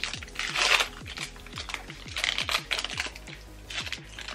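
Foil Pokémon booster pack wrappers crinkling and tearing as they are pulled open by hand, in a run of short crackly rustles. Background music plays underneath.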